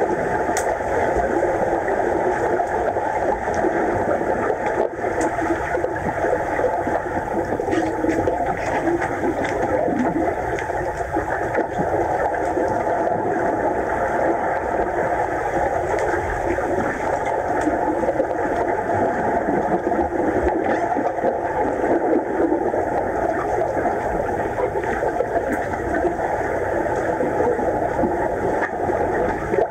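Steady, muffled underwater noise of pool water as heard by a camera submerged on the pool floor, with a few faint clicks.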